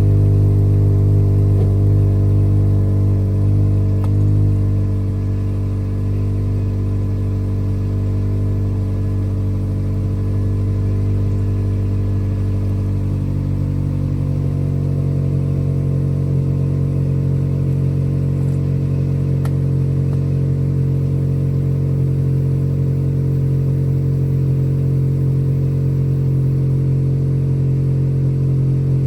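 Car engine idling steadily. About thirteen seconds in, its pitch steps up a little and holds there.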